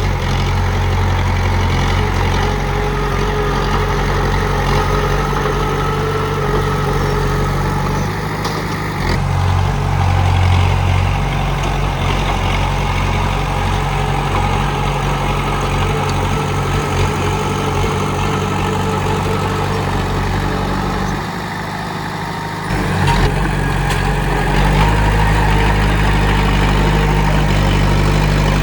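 Komatsu D31P bulldozer's diesel engine running with a steady low drone, shifting abruptly about a third of the way through and dropping briefly quieter about three-quarters of the way through.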